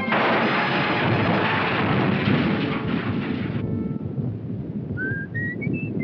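Cartoon sound effect of a loud rumbling, crackling crash of debris after an explosion, lasting about three and a half seconds and then dying away. Near the end, a few short whistled notes step upward in pitch.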